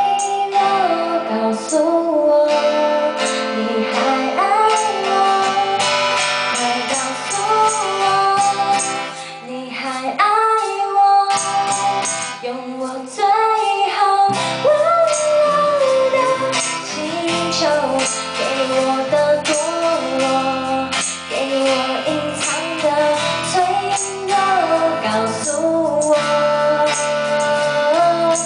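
Live band playing a song: a woman sings over a strummed acoustic guitar and an electric bass.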